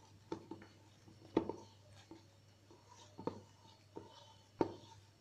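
A hand mixing and kneading thick gram-flour and rice-flour dough in a metal bowl: soft, irregular slaps and squelches, about five of them, with a faint steady hum underneath.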